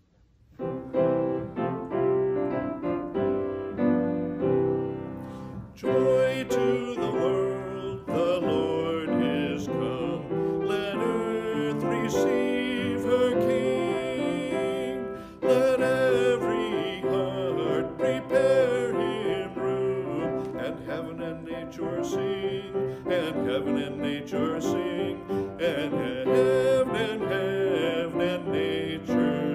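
A man singing a solo with piano accompaniment. The piano plays alone at first and the voice comes in about six seconds in.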